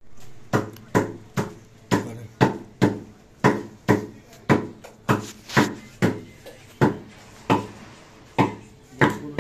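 A heavy cleaver chopping on a wooden butcher's block: a steady run of blows, about two a second, with a few short pauses.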